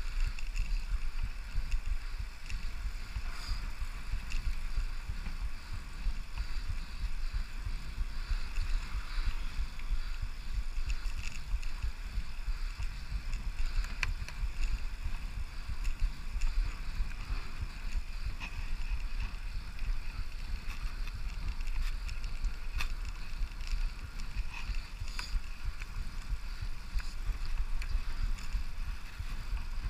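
Steady wind noise on the microphone with tyre and road noise from a Brompton folding bicycle rolling along asphalt, and a couple of faint clicks.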